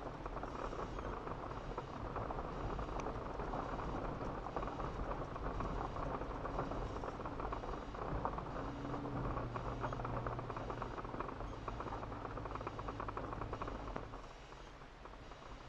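Toyota Land Cruiser FZJ80 rolling slowly over a rocky dirt track, heard from inside the cab: a steady crackle of tyres on gravel and cabin rattle. A low engine hum comes in about halfway, and the sound gets quieter near the end.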